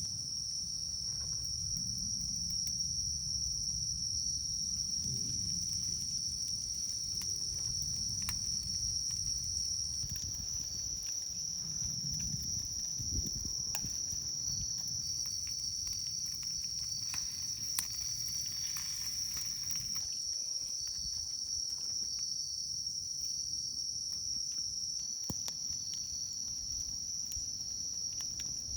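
Steady, high-pitched chirring of an insect chorus, over a low rumble with scattered faint clicks.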